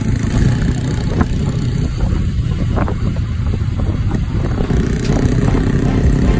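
Motorcycle riding sound heard from on the bike: engines running at road speed with a steady rush of wind across the microphone.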